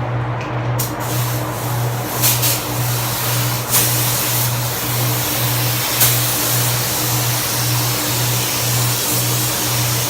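A steady, loud hiss with a low pulse repeating about every 0.7 seconds and a few brief knocks.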